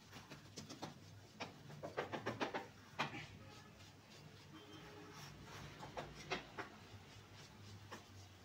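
Wooden spatula pressing and smoothing a soft Mysore Pak mixture on a steel plate: faint scrapes and taps of wood on metal, in quick runs during the first three seconds, then more sparsely.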